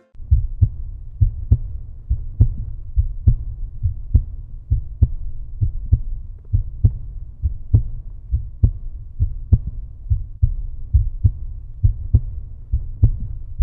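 Outro music track: a low, heartbeat-like thudding beat, the thumps falling in close pairs a little under a second apart.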